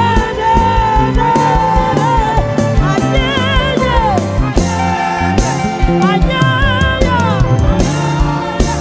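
Gospel praise music: a singer holds long, wavering notes over a band playing a steady drum and bass beat.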